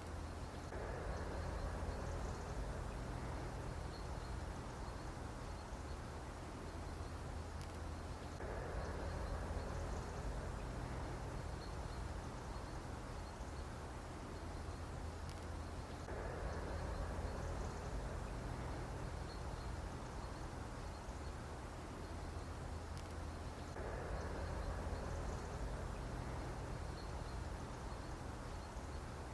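Mosquito buzzing, swelling and fading about every eight seconds in a repeating loop, over a steady low hum.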